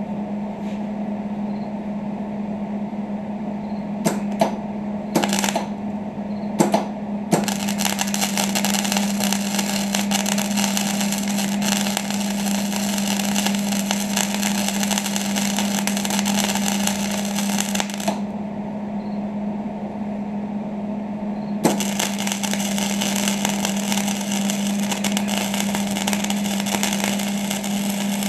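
Electric arc welding on steel: a few short crackling tacks, then two long stretches of continuous crackle with a pause between them. A steady low hum runs underneath.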